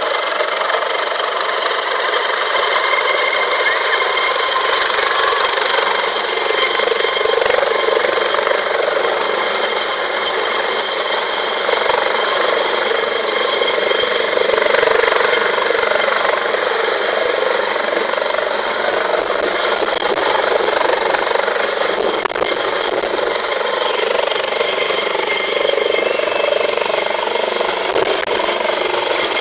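A helicopter flying in low and hovering over a helipad on a landing approach: loud, steady rotor and engine noise with a thin high whine.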